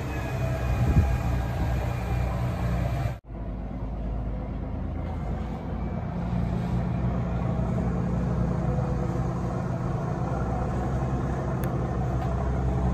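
Pilot boat's engine running steadily as the boat travels alongside, a low drone under the rush of water from its wake. The sound cuts out suddenly for a moment about three seconds in, then carries on the same.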